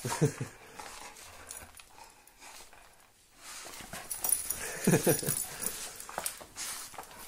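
Doberman playing tug with a rope toy, giving two short, low growls, one near the start and one about five seconds in, amid scuffling and rustling of the toy.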